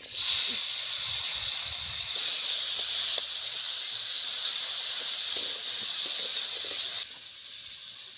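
Cubed potatoes sizzling loudly in hot oil in a steel wok over a wood fire, with a few light scrapes of a metal spatula stirring them. The sizzle drops sharply to a lower level about seven seconds in.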